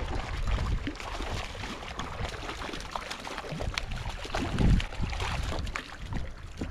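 Water splashing and gurgling, full of small crackles, with gusts of wind rumbling on the microphone, strongest about four and a half seconds in.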